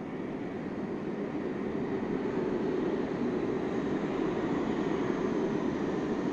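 New York City subway train approaching through the tunnel into an underground station: a steady rumble of wheels on rail that grows gradually louder.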